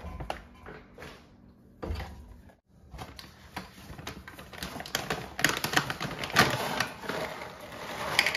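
Dry dog kibble poured from a plastic food bag into a plastic measuring cup: a dense clicking rattle of pellets with bag crinkling, growing busier toward the end. A couple of knocks come first, in the opening two seconds.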